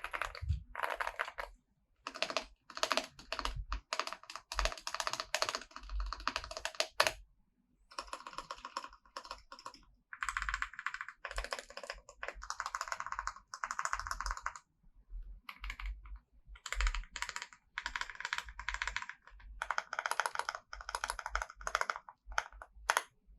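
Typing on a Zuoya GMK67 mechanical keyboard with Holy Tom V2 switches lubed with Krytox 205g0, double-shot ABS keycaps, foam and tape mods: quick runs of keystrokes with a marbly sound, in bursts of a second or two broken by short pauses.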